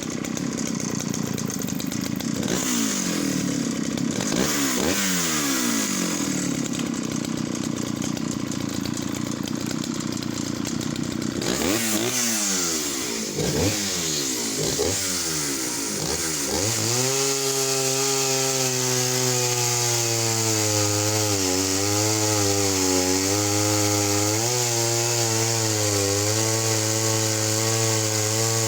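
Jonsereds 751 vintage two-stroke chainsaw running at high revs for about eleven seconds. It is blipped a few times and then settles to a steady idle for the rest.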